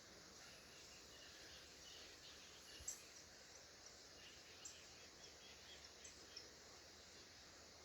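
Faint, scattered chirps of small birds over a faint steady background noise, with a single sharp click about three seconds in.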